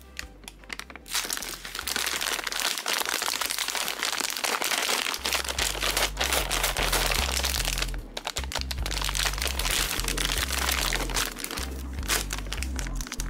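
Plastic M&M's candy bag being handled and squeezed, crinkling, starting about a second in with a short lull about eight seconds in. Background music with a bass line plays underneath.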